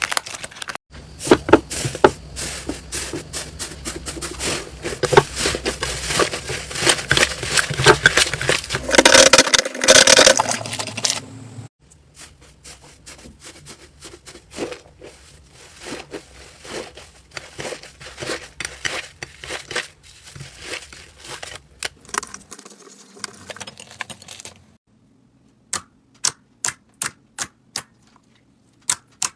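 Slime being squeezed, stretched and poked by hand, giving dense crackling and popping clicks. The crackling drops to a quieter level about twelve seconds in, and near the end gives way to sharp single clicks, two or three a second.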